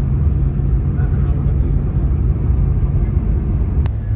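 Eurostar high-speed train running at speed, heard from inside the passenger carriage: a steady low rumble with a hum that drops slightly in pitch near the end, just after a single sharp click.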